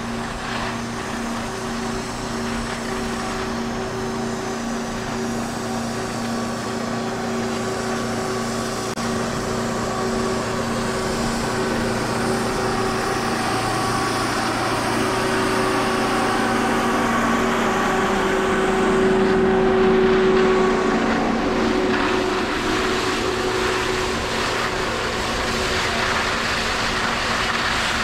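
Skis sliding over snow with wind rushing past the microphone, a steady hum running underneath. It grows a little louder about two-thirds of the way through.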